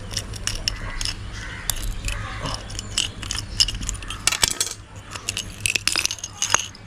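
Small pieces of a smashed light-bulb base, broken glass and metal bits, clinking and rattling as they are picked through by hand, in many quick irregular clicks.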